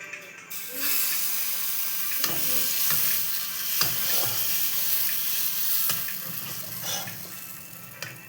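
Pakvan frying in hot oil: a loud sizzle that starts about a second in and fades somewhat near the end, with a few sharp knocks as the pan is stirred.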